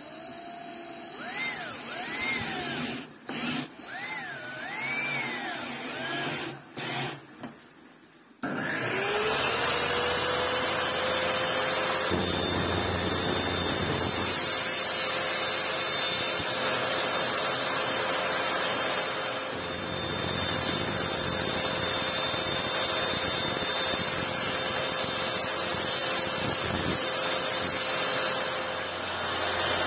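Cordless drill driving screws in short bursts, its pitch rising and falling with trigger speed. About eight seconds in, a table saw motor starts, spins up and runs steadily while its blade cuts thin HPL laminate sheet.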